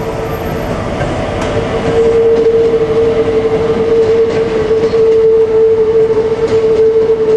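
Keikyu commuter train passing over a level crossing, its wheels clattering over the rail joints and crossing, while the Japanese crossing alarm rings with a steady high tone.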